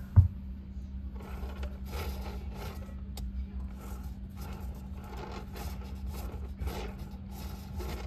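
A single thump just after the start, then the steady low hum of an open refrigerator under a run of soft scraping and rustling noises from things being handled inside it.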